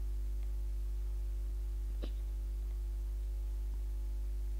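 Steady low electrical mains hum with faint overtones, and a faint tick about two seconds in.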